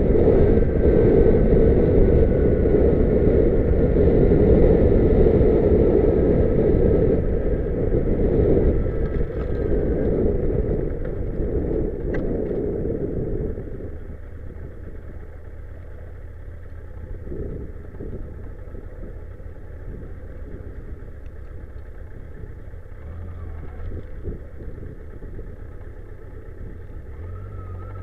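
Car driving: steady road and engine noise, louder for roughly the first thirteen seconds, then dropping suddenly to a quieter low rumble.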